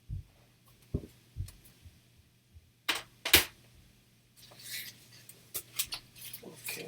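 Hard plastic CGC slabs being handled on a table: a few soft knocks, then two sharp plastic clacks about half a second apart, followed by rustling and light clicking as the books are moved.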